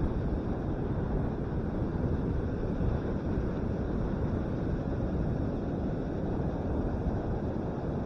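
A steady low rush of wind buffeting the microphone, mixed with the surf of breaking ocean waves, with no breaks or distinct events.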